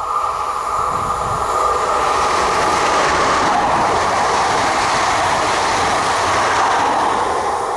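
SNCF Régiolis Coradia Liner B85000 multiple unit passing close by on electric power, pantograph up, the rush of wheels and air swelling a couple of seconds in and easing off near the end.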